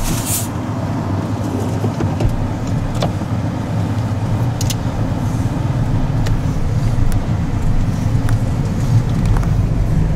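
Road and engine noise of a car being driven, heard from inside the car: a steady low rumble that deepens and strengthens about two seconds in, with a few faint light clicks.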